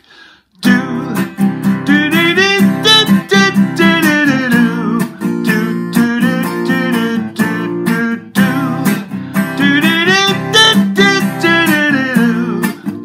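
Acoustic guitar strummed in a steady rhythm, playing the intro of a 1960s pop song. It starts after a short pause about a second in.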